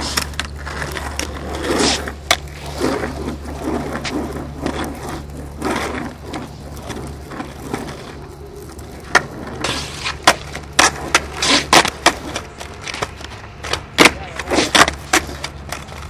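Skateboard on rough concrete during freestyle flatground tricks: wheels rolling and scraping, then from about the middle a run of sharp clacks as the board's tail and deck strike the ground and the board lands.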